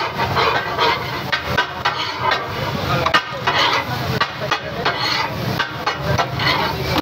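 Steel spatulas clattering rapidly against a large iron tawa griddle as fried fish is chopped and tossed: the metal-on-metal katakat rhythm, several irregular strikes a second.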